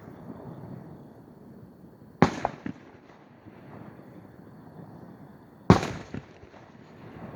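Aerial fireworks shells bursting: two sharp booms about three and a half seconds apart, each followed by a couple of smaller cracks.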